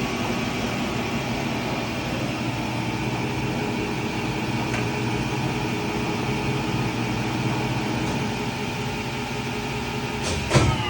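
Blanchard 20-36 rotary surface grinder running, a steady machine hum with several constant tones from its motors and rotating chuck. A brief louder sound comes near the end.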